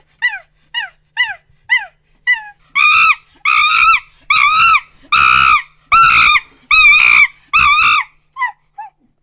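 Monkey calling: a run of short, falling hoots about two a second builds into a string of loud, long screams that rise and fall in pitch, then tapers off into a few short calls near the end.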